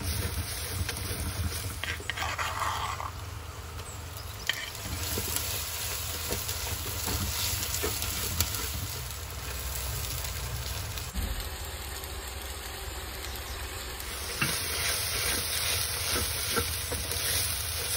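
Sliced onions and spices sizzling in hot oil in a clay pot, stirred continuously with a wooden spatula that scrapes and taps against the pot's sides.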